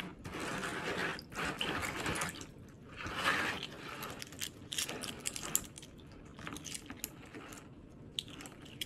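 Brass 5-yen coins soaking in baking-soda water, stirred by hand: water swishing and coins shifting in the basin, then from about four seconds in, a string of the coins clinking together in short sharp clicks as it is lifted and handled.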